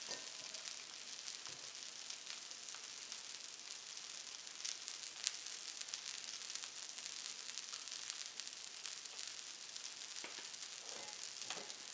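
Arepas de queso frying in butter on a flat griddle: a steady sizzle with fine crackles, and one sharper pop about five seconds in.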